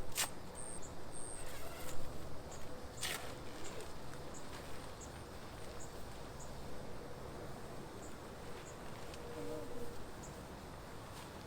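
Outdoor ambience with faint, short, high-pitched insect chirps repeating about once or twice a second. Two sharp clicks sound, one right at the start and one about three seconds in.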